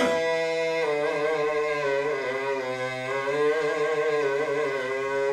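A man's voice chanting the call to prayer (adhan), drawing out a single long melodic phrase that slowly wavers up and down in pitch without a break.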